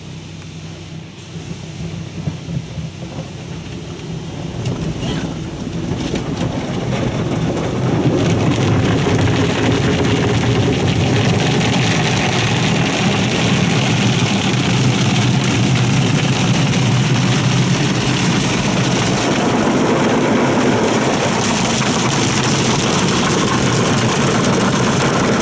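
NuStar soft-touch automatic car wash gantry working over the car, heard from inside the cabin: its red cloth brushes scrubbing the glass and body with water spraying. It builds from a low hum to a steady loud scrubbing wash over the first several seconds as the gantry reaches the car.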